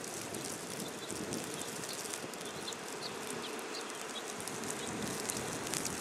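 Steady hiss of blizzard wind and blowing snow, with scattered faint ticks of snow grains striking the camera.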